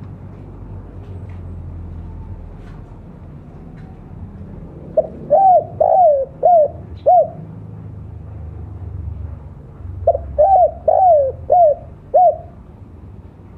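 Spotted dove (tekukur) cooing in two phrases of about five notes each, the first about five seconds in and the second about ten seconds in. A low, steady rumble runs underneath.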